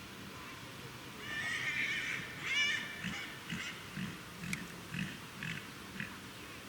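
A horse whinnying: a long high call starting about a second in, breaking into a string of shorter pulses that fade out.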